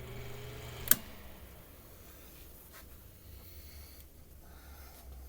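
Mainstays 9-inch high velocity fan's motor humming, then a single sharp click about a second in, typical of the fan's switch being turned, after which the motor tone stops and only a faint low hum is left.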